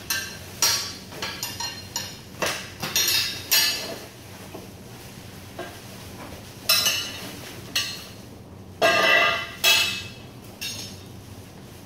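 Metal clanks and clinks from a steel sack frame and hook being handled while a woven sack is worked on it: a quick run of sharp knocks in the first four seconds, then scattered ones with a longer rustling scrape about nine seconds in.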